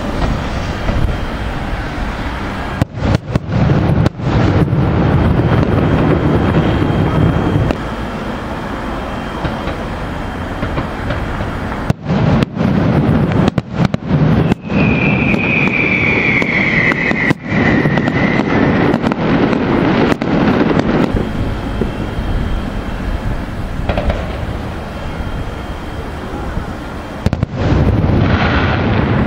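Aerial fireworks display: a continuous barrage of shells booming and banging, with a whistle sliding down in pitch for a few seconds about halfway through. The sound cuts out for an instant after several of the loudest bangs.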